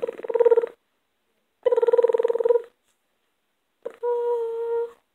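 A person imitating a phone ringing with the voice: three buzzy, trilled rings of about a second each, a second apart, all at the same pitch.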